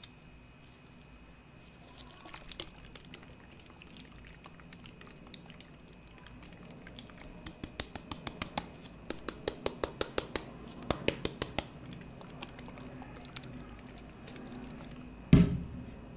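Gloved fingers tapping and scratching a small plastic bottle of Wahaha milk drink. There are a few light taps at first, then a fast run of crisp taps through the middle. Near the end the bottle knocks down once, loudly, onto the stainless-steel ice cream roll pan.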